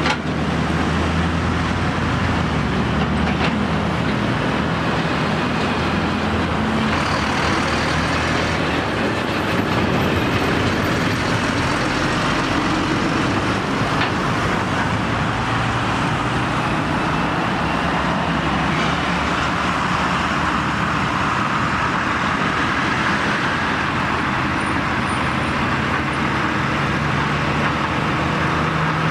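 Heavy road traffic passing close by: diesel engines of lorries and a farm tractor running under way, with steady tyre and traffic noise.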